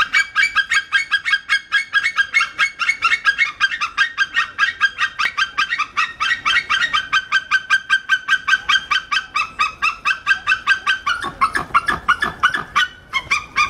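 White-tailed eagle (sea eagle) calling: one long, loud series of short, high yelping notes at about five a second. The notes grow less regular near the end and break off briefly before resuming.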